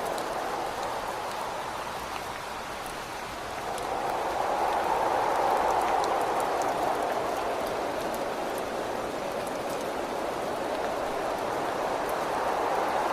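Steady rain with wind, the wind sinking briefly and then swelling in gusts about four seconds in and again near the end, with scattered raindrops ticking against a surface.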